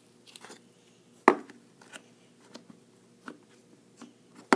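A clear plastic tub of putty-like dough being handled on a desk, with the dough pressed into it: one sharp knock about a second in, a few lighter taps, and another sharp knock at the end.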